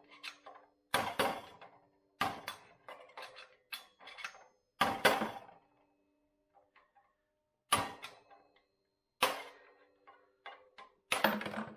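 A screwdriver knocking and levering against a front wheel bearing inside the aluminium hub of a 2000 Honda CR125R wheel to drive the bearing out. The sound is a series of irregular sharp metallic knocks, some ringing briefly, with a pause about six seconds in.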